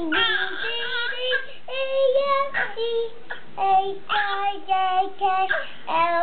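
A young boy singing a slow children's song, each note held at a steady pitch with short breaks between notes.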